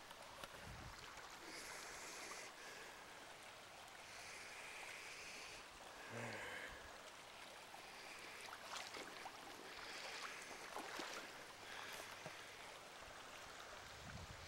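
Faint rush of river rapids, swelling and easing in patches, with a few scattered clicks.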